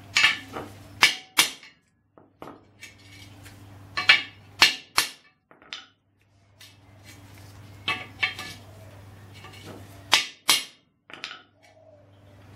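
Hand hammer blows on a steel bracket and a steel punch held against it: sharp metallic clanks in clusters of two or three, with pauses between. The bent bracket is being knocked back into shape.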